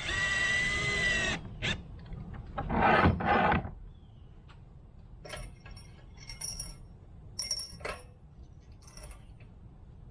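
A power drill driving wood screws: a steady motor whine for about a second and a half, a second louder burst under load around three seconds in, then a few light metal clicks and taps from the latch hardware being handled.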